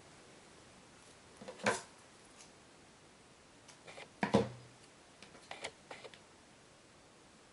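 A few scattered light taps and clicks of paper pieces and scissors being handled on a wooden tabletop, the loudest about four seconds in.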